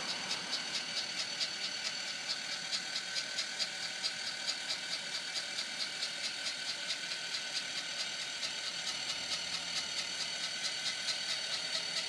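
Electric motor of a Zip Dee Relax 12-volt power awning running steadily as it raises the tilted awning arm back up, with a rapid regular ticking over its whir. A lower hum joins about nine seconds in.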